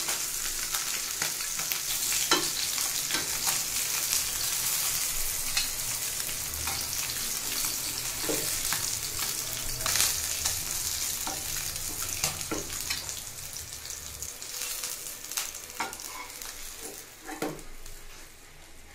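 Small royna fish sizzling in hot oil in a frying pan, with clicks and scrapes of a metal spatula as the pieces are lifted out. The sizzle dies down near the end as the pan empties.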